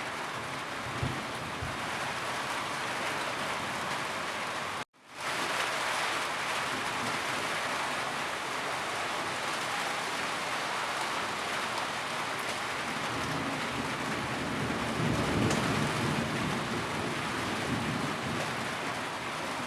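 Rain falling steadily, a constant hiss. About five seconds in it cuts out abruptly to silence for a moment and fades back in, and a low rumble swells a little past the middle.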